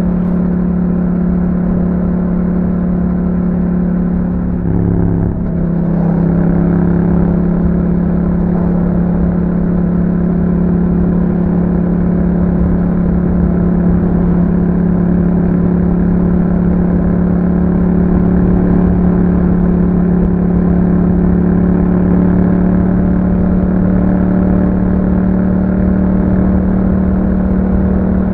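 2021 Yamaha MT-07's parallel-twin engine running through an Akrapovic exhaust at steady cruising revs. About five seconds in the note briefly drops and shifts, a gear change, then holds steady again and rises slightly.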